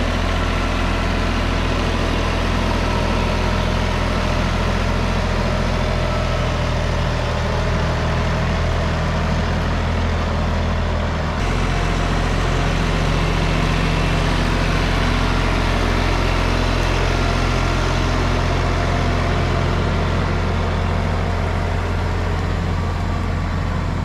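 Tractor's diesel engine running steadily under load as it pulls a middle buster plow down the potato rows, digging the potatoes out. The engine sound shifts abruptly about halfway through.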